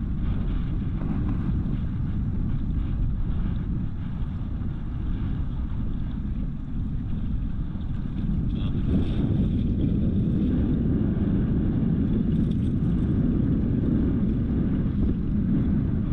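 Steady low rumble of a small fishing boat under way at trolling speed, with wind buffeting the microphone.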